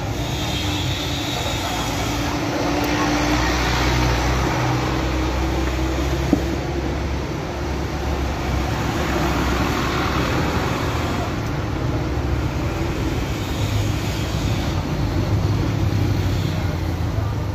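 Steady rumble of motor-vehicle engines running, with a single sharp click about six seconds in.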